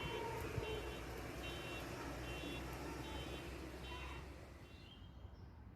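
An electronic vehicle beeper sounds a repeating multi-tone beep about every 0.8 s over steady rushing noise. It fades out near the end as the sound drops away.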